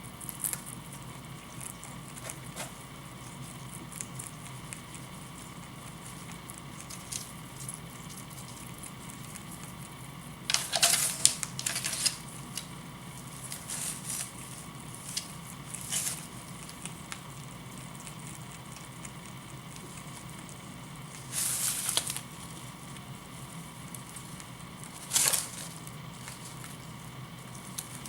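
Pet rabbit munching dry hay: scattered small crunches and rustles, with several louder brief noisy bursts, over a steady faint background hum.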